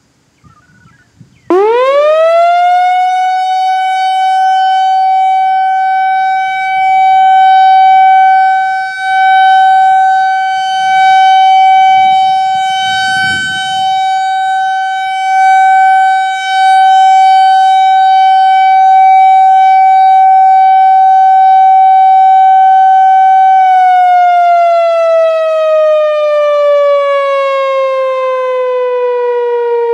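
Whelen WPS-4004 electronic outdoor warning siren, on an analog controller, sounding a steady Alert tone. It winds up quickly about a second and a half in, holds one steady pitch while the loudness swells and dips every couple of seconds as the rotating head sweeps past, then starts winding down slowly near the end.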